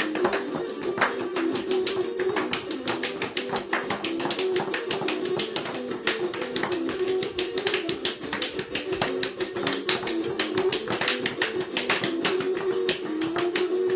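Fast dance music with a quick, even percussive beat under a melody line, sounding in a small room.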